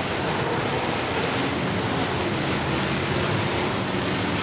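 Engines of many racing pickups and cars running around the track together, a dense steady noise with faint engine notes rising and falling.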